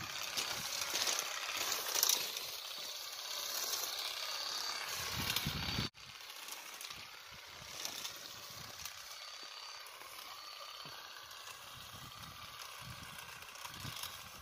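Electric olive-harvesting rake working in an olive tree: a steady rattle of its vibrating combs beating the branches, with leaves rustling. The sound drops suddenly to a quieter rattle about six seconds in.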